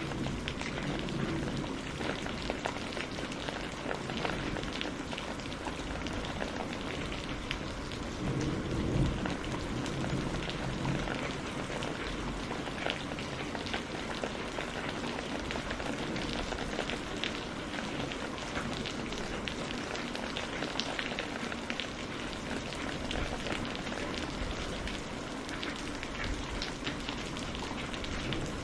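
Steady heavy rain falling, with many small sharp ticks through it, and a low swell of distant thunder rumbling about eight to eleven seconds in.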